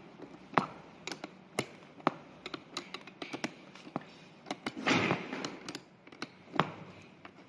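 A 13 mm wrench working a bolt loose on a scooter seat's steel spring frame: scattered sharp metal clicks and clinks a few times a second, with a short scraping rustle about five seconds in.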